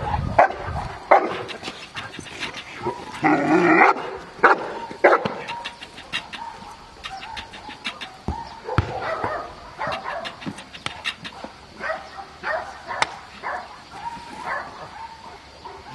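Cane Corso barking repeatedly on the leash at the protection-training helper, loudest in the first few seconds. Then it quietens to many short sharp clicks and knocks as it grips and works the bite sleeve.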